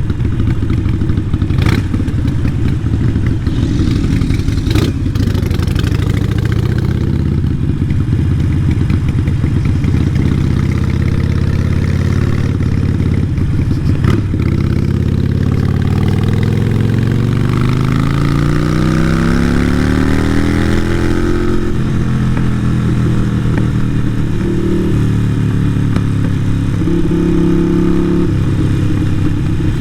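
Harley-Davidson Sportster 883 Iron's air-cooled V-twin running through a Vance & Hines exhaust while riding. About halfway through the revs climb steadily for several seconds, then drop off abruptly, followed by a couple of shorter shifts in engine speed near the end. A few sharp knocks come in the first half.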